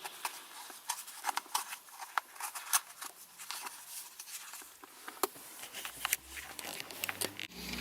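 A small cardboard product box is opened and its contents handled by hand, giving scattered light clicks, taps and short scrapes of card and packaging.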